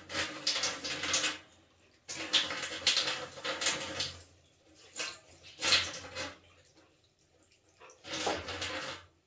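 Household cleaning noise: four bursts of swishing, each one to two seconds long, separated by short quiet gaps.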